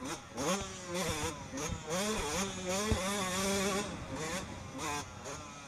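Yamaha motocross bike engine revving hard as it accelerates, its pitch climbing and dropping several times as it pulls through the gears, then held high for about a second. A sharp knock comes about three seconds in, and the engine eases off about four seconds in.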